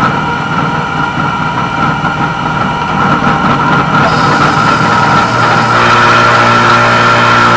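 CNC milling spindle running with a steady high whine while its end mill cuts into a metal bracket. The cut is rough and chattery on the plunge at a reduced feed rate, and about five seconds in it settles into a steady, even hum.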